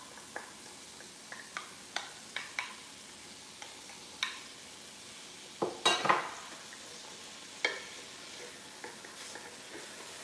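Diced carrots sizzling in beef fat in a cast iron skillet, stirred with a wooden spatula that scrapes and knocks against the pan. The sizzle is faint and steady, with scattered clicks, and the loudest scrapes come about six seconds in.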